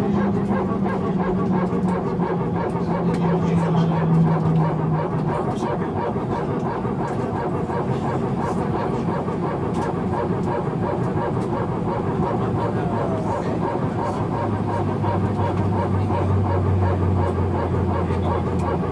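Steady hum inside an Airbus A319 cabin parked after landing, with the aircraft's systems running. A low tone sinks slightly in pitch over the first five seconds, and a deeper tone sets in about fourteen seconds in.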